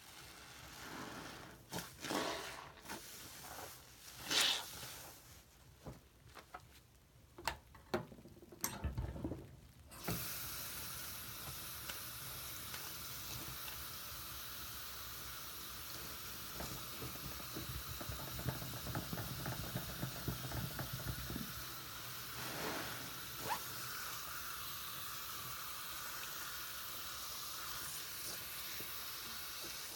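Foamy sponge squelching in short, wet squishes as it is squeezed in soapy water. About ten seconds in, the faucet turns on and runs steadily into the sink, and a few more squishes sound under the running water.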